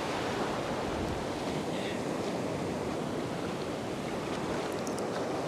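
Ocean surf breaking and washing in over the shallows of a beach, a steady rush of water.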